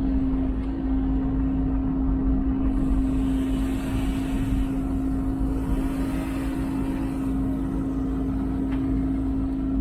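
A heavy vehicle's engine running steadily under load, with a constant droning hum and low rumble.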